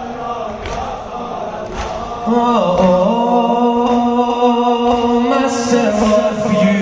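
Men's voices chanting a noha, a Shia mourning lament, with no clear words. About two seconds in, the chant gets louder as a voice holds a long, wavering note. Soft regular beats sound about once a second underneath.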